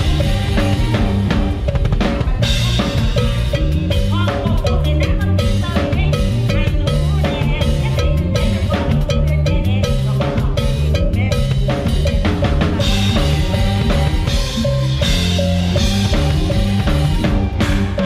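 Live band music driven by a drum kit played hard: snare and bass drum hits with cymbals over a steady bass line and other pitched instruments, loud and unbroken.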